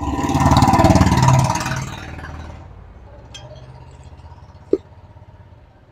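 A motor vehicle's engine passes close by, swelling loud and then fading away over about two and a half seconds, over a steady low hum. A single sharp click near the end.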